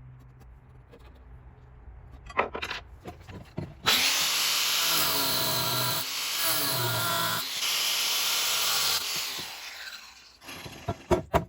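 Power tool cutting through a piece of steel: it starts about four seconds in, cuts with a loud, harsh hiss whose pitch wavers under load for about six seconds, then winds down. A few clicks and knocks of handling come before and after.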